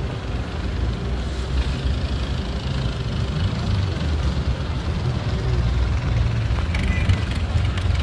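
Motorboat engine running with a steady low rumble as the boat moves over the water, mixed with wind buffeting the microphone.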